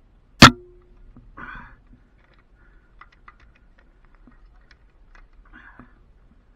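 Hands working cable-lashing hardware on an aerial steel strand and trunk coax: one sharp knock with a short ring about half a second in, then light clicks and rattles with two brief rustles.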